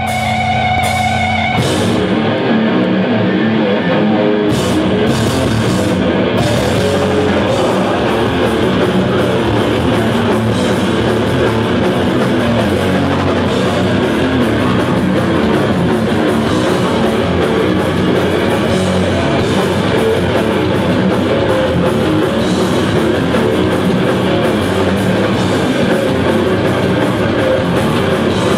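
Heavy metal band playing live, loud: a held guitar tone opens, then drums and distorted electric guitars come in about two seconds in and keep going, dense and unbroken.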